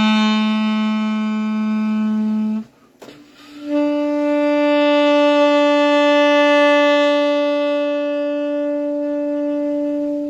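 Saxophone playing long held notes as a dynamics exercise: one note ends about two and a half seconds in, and after a short breath a higher note swells in, is held, and begins to fade near the end.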